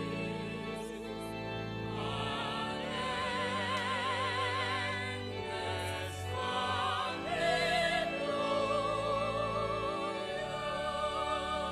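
A church choir and congregation sing a hymn in procession, in English, on slow, long-held notes with vibrato; the words here are "Victorious ones, your chant shall still be this: an endless Alleluia."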